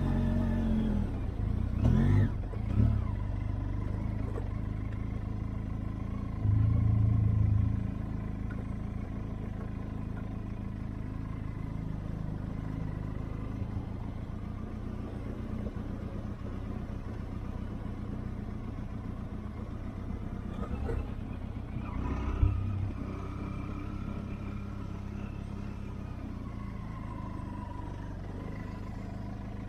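Benelli TRK 502X parallel-twin engine running at low revs, its pitch dropping at the start, then settling to a steady, low, idle-like note. Two knocks come a couple of seconds in, a brief louder surge about seven seconds in, and a single sharp knock past the twenty-second mark.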